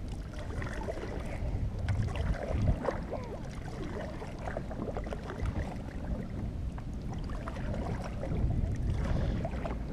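Kayak paddle dipping into lake water, with small splashes and drips off the blade, over a low rumble on the microphone.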